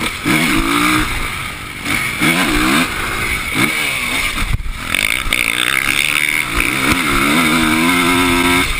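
Motocross bike engine heard from on the bike, revving up and falling back again and again as the rider accelerates and shifts along the dirt track. The pitch is held high for the last couple of seconds, then drops away suddenly near the end. Steady wind rush runs over it.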